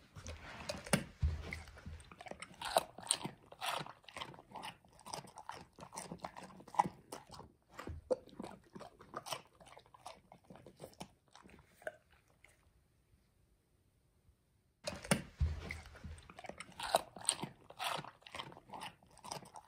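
A Black Russian Terrier crunching and chewing a raw cucumber in quick, irregular bites. There is a pause of about two seconds roughly two-thirds of the way through, then the crunching starts again.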